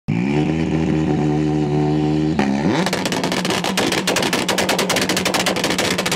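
Turbocharged rally car engine held at steady revs, then revved up about two and a half seconds in. From there the anti-lag system fires a rapid, continuous string of popping bangs from the exhaust: controlled backfires while the revs are held for a launch.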